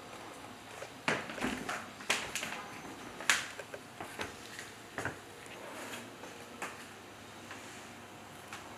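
A scatter of sharp, irregular clicks and knocks, about a dozen between one and seven seconds in, the loudest a little after three seconds, over faint room tone in an empty house.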